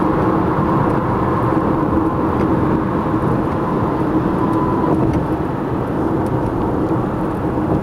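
Car driving at highway speed, heard from inside the cabin: a steady hum of road and engine noise with a faint constant drone.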